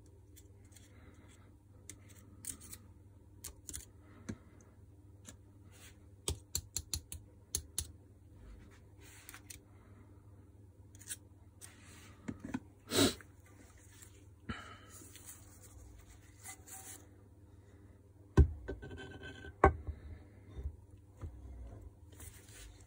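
Scattered clicks, light scrapes and rustles of gloved hands handling the greased aluminium gearbox parts of an electric garden shredder, with two sharp knocks a little over a second apart toward the end.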